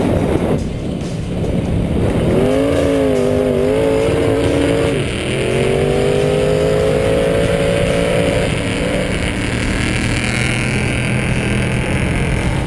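Lifted pickup truck's engine revving hard on a sand drag launch, its pitch climbing steadily for a few seconds as it accelerates, then dropping away.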